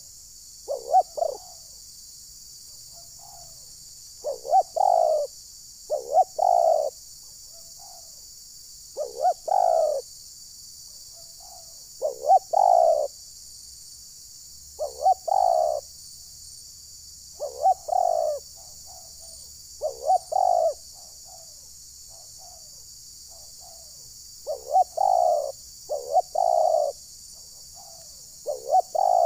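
Spotted doves cooing in short phrases of two to four coos, repeating every two to three seconds.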